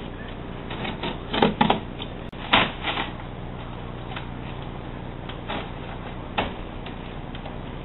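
Irregular knocks and clatter of hard parts being handled, such as pinball machine legs and their hardware, with the loudest clunks about one and a half and two and a half seconds in, over a steady low hum.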